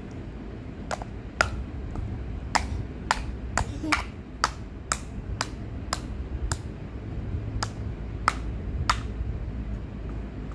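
Large plastic toy building blocks clicked and knocked together by a toddler's hands: about fourteen sharp plastic clicks at uneven intervals, over a low steady background hum.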